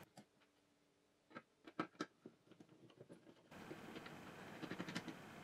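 A few short, sharp metallic clicks from a screwdriver working the screws that hold the magnets in an old hard disk drive's aluminium case, with near silence between them.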